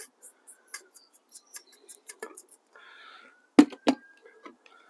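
White sugar being tipped from a bag into a glass jar: a quick trickle of light granular ticks and rustling for about two seconds, then two sharp knocks about three and a half seconds in as the glass jar is set down on a kitchen scale.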